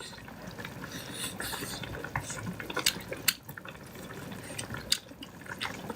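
A crowded pot of food bubbling at the boil, with a steady liquid burble and scattered sharp pops and clicks.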